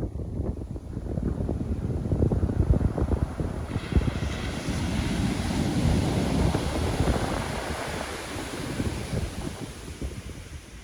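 Pacific Ocean surf: a wave breaks about four seconds in, its hiss swelling and then fading as it washes in, over wind buffeting the microphone.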